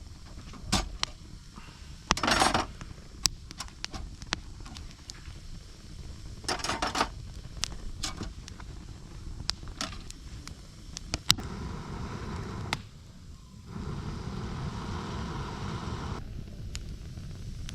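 Cookware and utensils being handled during campfire cooking: scattered sharp clinks and knocks, with two short scraping rushes. After about eleven seconds a steady hiss sets in, dipping briefly near the middle of it.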